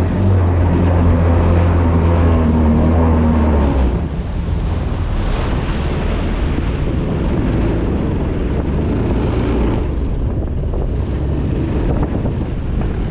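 The jet kayak's 17 hp engine runs at a steady pitch, then stops about four seconds in. After that there is only wind buffeting the microphone.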